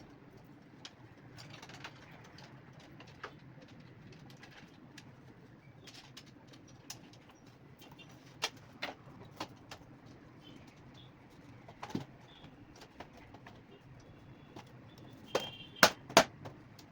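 Pigeons cooing in the background, a low, pulsing murmur, with scattered sharp clicks and taps on top; the loudest clicks come in a quick cluster near the end.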